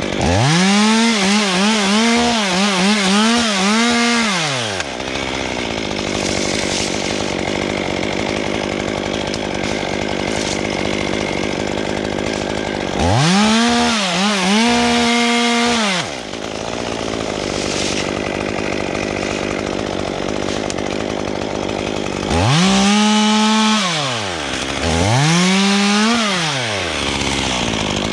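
Chainsaw running in bursts of full throttle with idling in between: a long run at the start with a wavering pitch, then three shorter runs later on.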